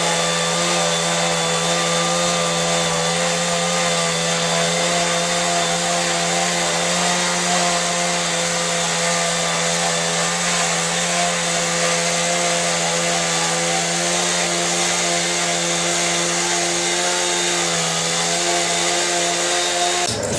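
A chainsaw running at a steady high speed, at one pitch throughout, then stopping near the end.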